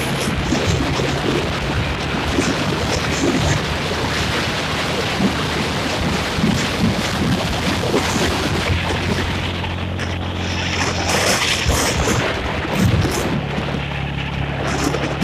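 Motorbike engine running on the move under heavy wind noise on the microphone, with scattered short knocks.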